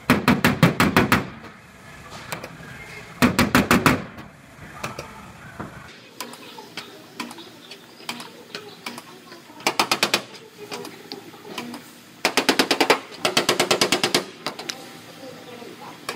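Pneumatic air hammer with a pointed tap-down bit hammering on a truck's steel bed side in several short bursts of rapid strikes, about ten a second. The strikes work the dented panel back into shape.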